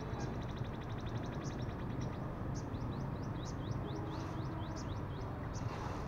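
Sunbirds calling: a fast, dry trill of high ticks, then a run of short, high, falling chirps, over a steady low traffic rumble.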